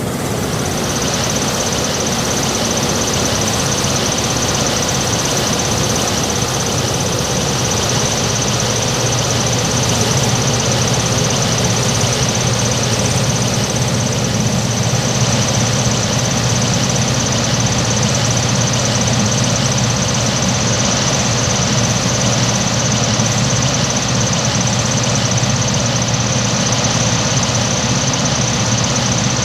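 Combine harvester engine running steadily at idle: an even deep hum with a thin, steady high whine above it.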